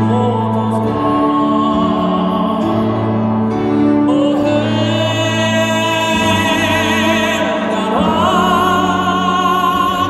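A man singing a slow song live into a microphone, holding long notes with vibrato and gliding up to a higher sustained note about eight seconds in, accompanied by acoustic guitar and violin.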